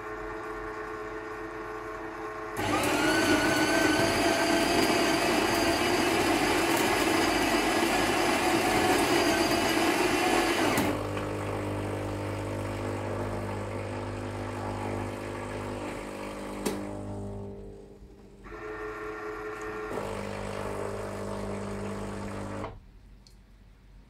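Krups EA8200 bean-to-cup espresso machine making a coffee. A motor hum is followed by the built-in grinder grinding beans loudly for about eight seconds. After that comes a lower pump hum as the coffee brews, with a click, a brief pause, and a few more seconds of pumping before it stops.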